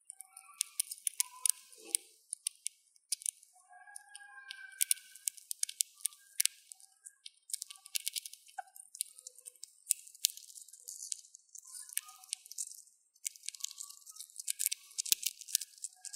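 Dwarf hamster cracking and gnawing sunflower seed shells at close range: rapid sharp clicks and crackles in bursts of a second or two, with short pauses between.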